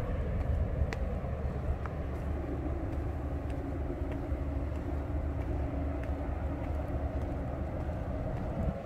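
Steady low rumble of distant road traffic, with a faint hum and a few faint ticks.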